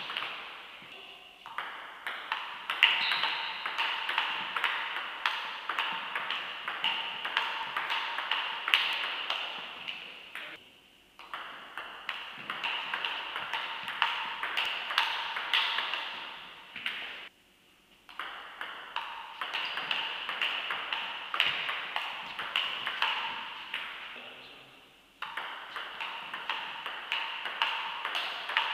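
Table tennis rallies: the ball clicking back and forth off the bats and the table, several hits a second, with a few short breaks between rallies.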